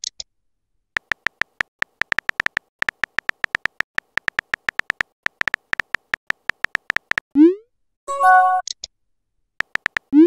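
Simulated phone-keyboard typing: rapid, sharp key clicks with a slight beep to each tap. About seven seconds in they stop, followed by a short rising whoosh as the message sends and then a brief pitched chime. The key clicks start again near the end.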